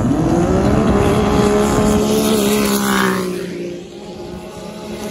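Racing snowmobile engines running at full throttle down a grass drag strip. The pitch holds high, then drops and the sound fades about three seconds in as the sleds pass and pull away.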